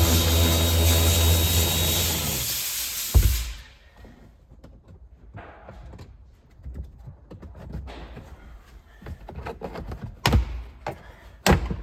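A loud hissing spray over a steady motor hum cuts off abruptly about three seconds in. Then come quiet scattered clicks and small knocks of handling, with two sharper knocks near the end.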